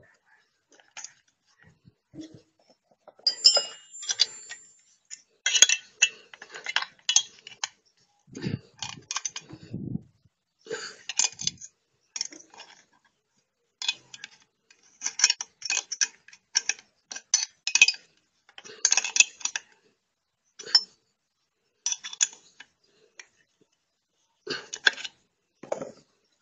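Irregular metallic clinks and rattles of a wrench, nuts and a loose saw chain being handled while a chain sprocket and bar are bolted onto a homemade electric saw, with a few duller knocks about a third of the way in.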